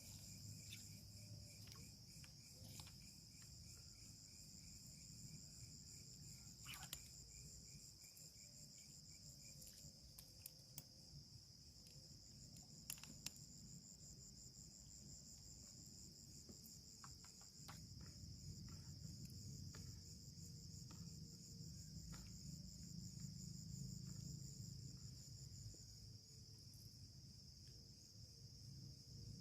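Insects chirring steadily at a high pitch, with a second, pulsing insect chirr for roughly the first third, over a faint low rumble and a few scattered clicks.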